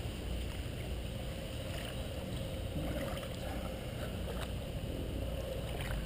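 Steady low rumble and hiss of a riverbank, with a few faint clicks and rustles as a landed fish is worked off the lure by hand.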